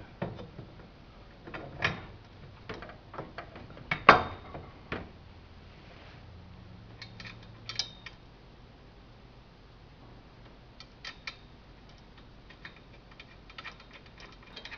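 Bolts, spacers and washers clinking and tapping against the metal bracket of a Schwinn 430 elliptical's frame as they are fitted by hand: scattered sharp metallic clicks, the loudest about four seconds in, fewer and fainter in the second half.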